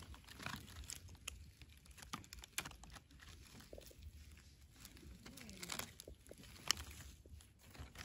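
Gloved hand rustling through leaf litter and twigs on the forest floor while picking red Russula mushrooms: soft crackles and rustles, with one sharp click about two-thirds of the way in.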